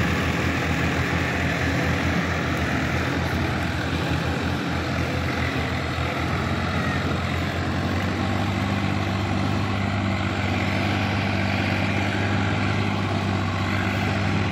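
Diesel farm tractor engine running steadily as the tractor pulls a tilling implement through a flooded paddy field. Its low engine tone becomes clearer and stronger from about halfway through as the tractor comes nearer.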